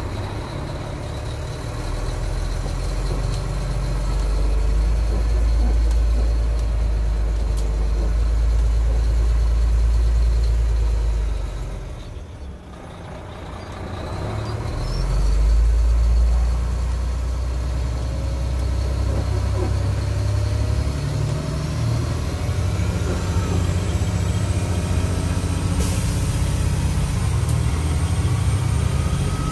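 Fire engine's diesel engine running, heard from inside the cab as the truck pulls out and gets under way. The rumble dips briefly about halfway through, then picks up again, its pitch climbing as the engine accelerates.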